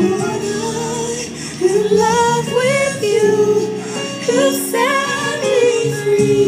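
Worship song with a woman singing the lead melody over steady backing.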